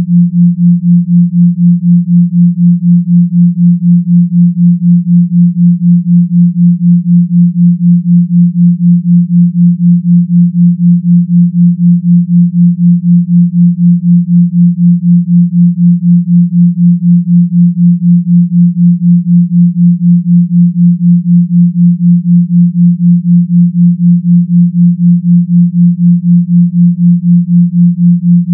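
A 174 Hz binaural beat: pure sine tones at 172 Hz and 176 Hz, one in each ear, held steady and pulsing evenly about four times a second.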